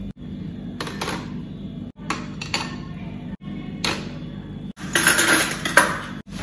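Ceramic plates and cups clinking as dishes are washed and set into a plastic dish rack, in short clips cut together. A louder, noisier stretch of clatter comes near the end.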